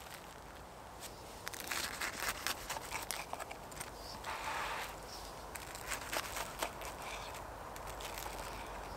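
Irregular rustling, crunching and sharp clicks from someone moving about and handling things by a campfire, with a short burst of rustling about four and a half seconds in.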